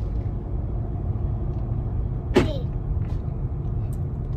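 Steady low road and engine rumble heard inside a car cabin while driving, with one short vocal sound about halfway through.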